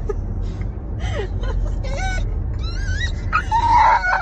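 Australian cattle dog squealing and whining with excitement, a string of high whines that rise and fall, starting about a second in and growing louder near the end. Underneath is the steady low rumble of a car cabin on the road.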